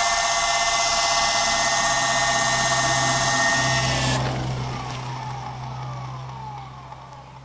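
RC helicopter's motor and rotor whining steadily at a high pitch, then cut off about four seconds in, the pitch falling away as the rotor spins down.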